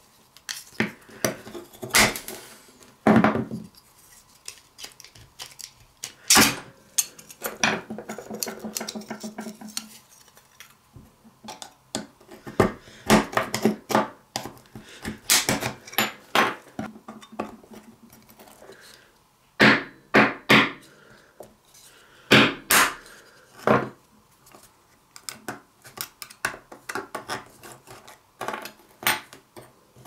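Irregular metallic clinks, taps and scrapes of a rusty pocket knife being taken apart by hand: its steel liners, pins and a steel pry rod knock against each other and a wooden workbench. A few clinks ring briefly.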